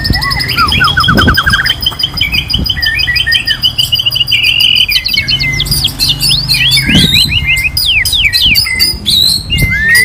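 White-rumped shamas singing: long, rapid trills of repeated notes in the first half, then from about five seconds in a fast run of sharp whistled sweeps. A low steady hum and a few knocks lie underneath.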